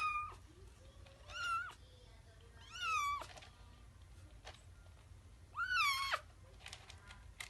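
Kitten meowing in the litter box while straining to defecate: four short, high meows, each rising and then dropping at the end, spaced a second or more apart.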